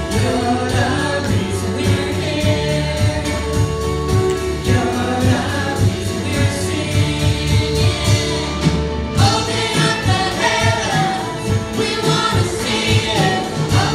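Live church worship band playing a contemporary gospel song: electric guitars, bass, drum kit and keyboard with lead and backing singers, over a steady drum beat.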